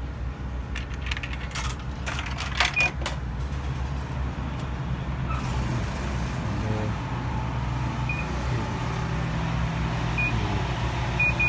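Coins dropping into a Twistar vending machine's coin slot, clicking and rattling through the coin mechanism in the first few seconds. Then come short beeps from the machine's keypad as its buttons are pressed: one about three seconds in, and several more near the end.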